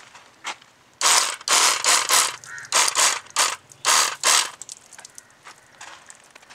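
A liquid sprayer squirting barnacle remover onto a boat's outboard motor bracket: a run of about ten quick hissing spray bursts, starting about a second in and stopping after about four and a half seconds.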